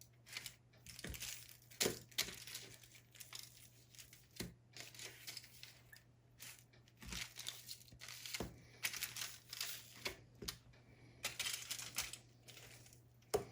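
Irregular crinkling and rustling with scattered small clicks, from raw chicken legs being turned over and dusted with a dry rub. A low steady hum sits underneath.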